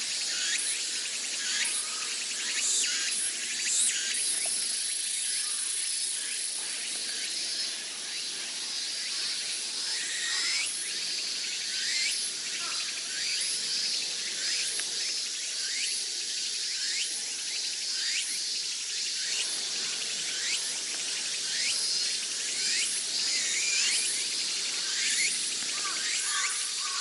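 Summer cicadas in a dense, steady chorus, a high shrill hiss with many short high calls repeating through it.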